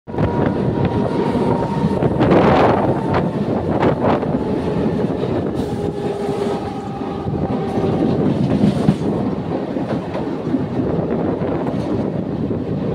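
Mumbai suburban local (EMU) train running at speed, heard from its open doorway: a steady rumble and rattle of wheels on rails, with a few sharp clacks about two and four seconds in. Faint steady whines sit above the rumble in the first few seconds and again around six to seven seconds in.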